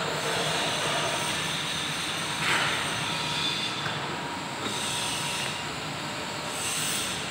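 Steady workshop noise, a continuous hiss and clatter with no clear rhythm, swelling briefly into a louder screech about two and a half seconds in.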